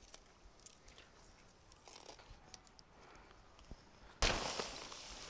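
Handling sounds from pitching a nylon dome tent: a few faint light clicks over near quiet, then about four seconds in a sudden steady rush of rustling noise.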